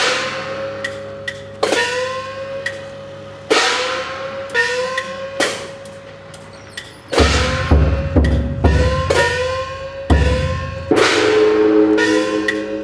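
Festival percussion for a Nagasaki Kunchi float: gongs struck again and again at an uneven pace, each stroke ringing with a tone that rises in pitch as it sounds. From about seven seconds in, heavy drum beats join for a few seconds.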